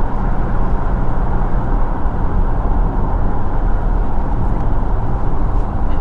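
Steady road noise of a car being driven, heard from inside the cabin: a continuous rumble of tyres and engine.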